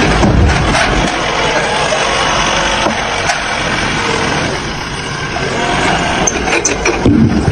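Heavy vehicle or construction machine engine running, with a few short knocks and clanks over it.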